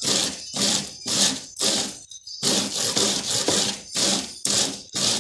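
Ears of green corn rubbed back and forth on a perforated hand grater, grating the kernels off the cob into pulp: a rhythmic rasping scrape, about two strokes a second, with a brief pause about two seconds in.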